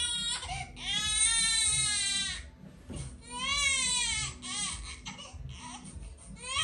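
A newborn baby crying: several loud wailing cries that rise and fall in pitch, the longest lasting about a second and a half, with shorter sobs between them.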